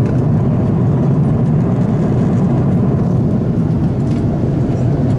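Steady cabin noise of an airliner in cruise: a constant low rumble of jet engines and rushing air.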